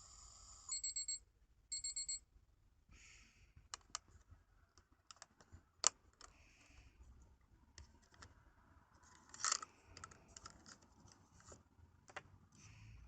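Miniature toy microwave oven sounding its electronic beep: two quick runs of about four high beeps, like a microwave's finished signal. After them come small plastic clicks and handling noises from the toy's door and buttons, with one sharper click about six seconds in.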